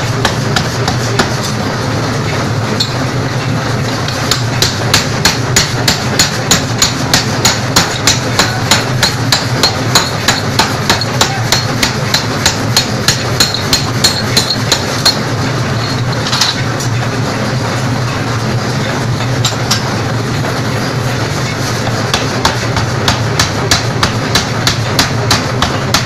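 Power hammer striking a red-hot steel bar held in tongs on its anvil die: a rapid run of sharp blows, about two to three a second, over a steady low machine hum. The blows thin out for several seconds past the middle, then pick up again.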